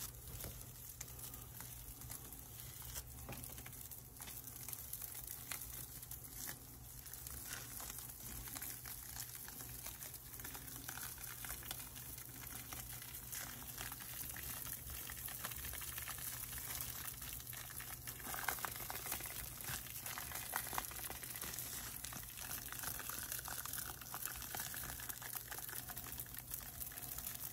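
Dry shed skin being peeled by hand off a snake's body: faint, continuous papery crinkling and crackling over a low steady hum.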